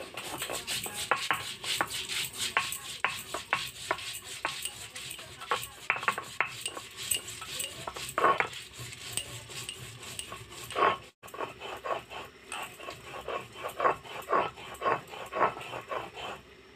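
Stone roller being rocked and rolled over a flat grinding stone (shil-nora), crushing garlic cloves and seeds into a wet paste. It makes quick, rhythmic gritty scraping strokes, about three a second.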